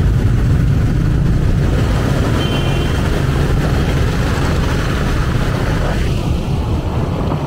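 Riding on a motorbike taxi through dense scooter traffic: a steady low rumble of small motorbike engines and road noise, with a brief horn beep about two and a half seconds in.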